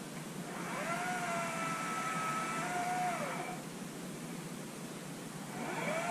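Oregon CS300 cordless electric chainsaw whining as its motor spins up under the trigger, runs steadily for about three seconds and winds down, then spins up again near the end.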